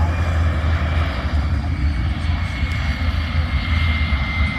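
Airplane engine running steadily over a strong low rumble, with a faint high whine that slowly falls in pitch.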